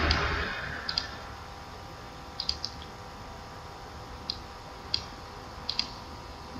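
Computer mouse clicks, about ten short sharp clicks coming singly and in quick pairs and threes, over a faint steady electrical hum.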